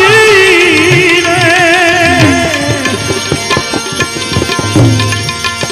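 Gujarati devotional bhajan music: a held vocal note with vibrato fades out over the first two seconds or so, then tabla strokes carry on, the low drum's pitch sliding down about five seconds in.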